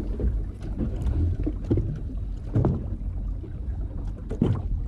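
Steady low rumble aboard a small fishing boat at sea, with a couple of brief knocks about two and a half and four and a half seconds in.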